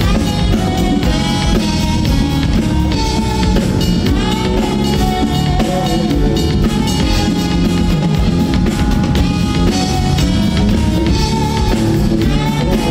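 Live band music: a Yamaha drum kit and an electric bass playing a steady groove under a pitched lead melody.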